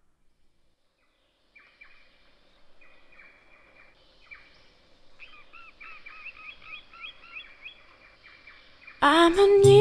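Birds chirping in quick runs of short, repeated chirps, faint at first and growing, after a second and a half of near silence. Music with singing comes in loudly near the end.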